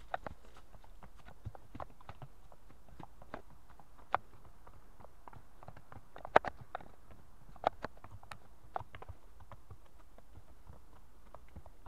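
Hooves of two horses clopping at a walk on a dirt forest trail: an uneven run of soft knocks, with a few sharper, louder strikes a little past the middle.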